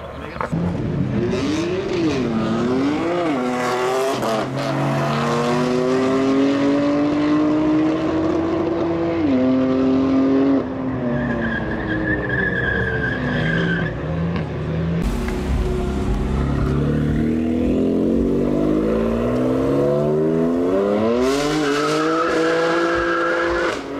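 BMW M performance cars accelerating hard, the engines revving up through the gears with sudden pitch drops at each shift. The tyres squeal in the middle and again near the end.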